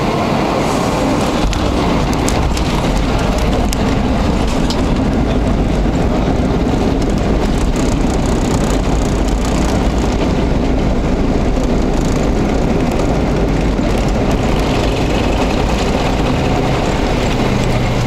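Cabin noise of a Boeing 737-800 rolling out on the runway just after touchdown: a loud, steady rush with a deeper rumble that comes in about a second and a half in.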